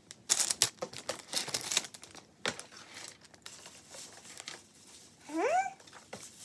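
Plastic packaging from a Lego set crinkling and rustling as it is handled, densest and loudest in the first two and a half seconds, then softer. Near the end comes a short rising voice sound.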